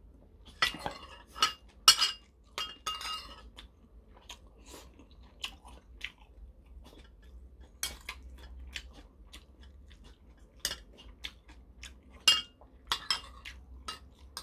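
Eating with a metal spoon: chewing on a mouthful of kimchi stew and rice, with scattered short clinks and scrapes of the spoon in the bowls.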